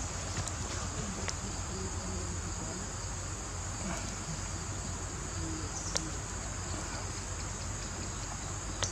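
Steady high-pitched drone of insects in the forest, with a couple of sharp clicks, one about six seconds in and one near the end.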